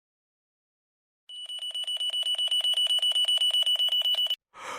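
An alarm ringing rapidly with a steady high tone. It starts about a second in, grows louder, then cuts off suddenly, and a short breathy sound follows right at the end.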